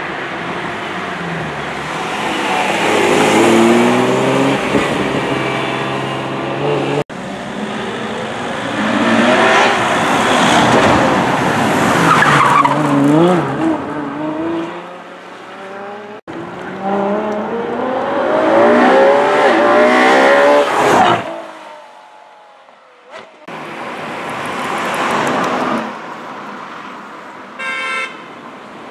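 Ferrari and Lamborghini supercar engines revving hard as the cars accelerate past one after another, loud. The pitch climbs and drops back at each gear change.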